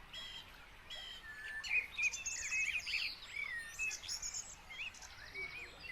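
Several songbirds singing and chirping in a forest in the early morning: a mix of short whistled notes, trills and rising and falling chirps over a faint background hiss.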